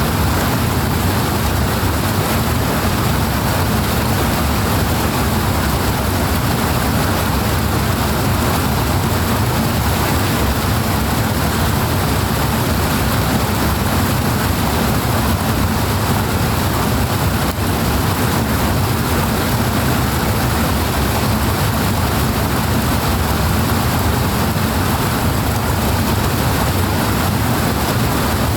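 Powerful water rushing in a steady, unbroken roar of noise with no changes.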